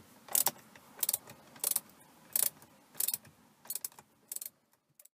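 Socket ratchet clicking in seven short strokes, about one every two-thirds of a second, as it undoes a Torx screw holding a steering wheel's airbag module; the strokes stop about four and a half seconds in.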